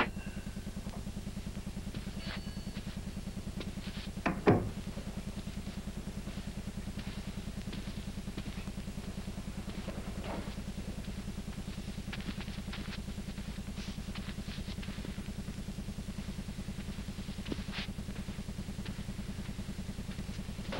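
An engine running steadily, a low rumble with a fast even pulse. A few faint clicks sound over it, and there is a brief louder clatter about four and a half seconds in.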